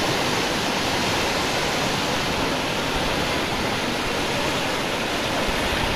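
Fast-flowing floodwater rushing steadily, an even, unbroken noise of moving water.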